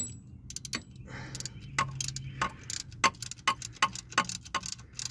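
Socket ratchet clicking in quick back-and-forth strokes, about three or four ticks a second, as a connecting-rod cap nut is run down onto the crankshaft journal.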